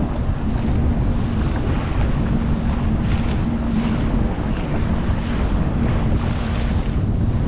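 Sea-Doo Fish Pro jet ski running at speed over ocean chop: a steady engine drone under rushing water and spray off the hull, with wind buffeting the microphone. The spray hisses louder in a few short bursts as the hull meets waves.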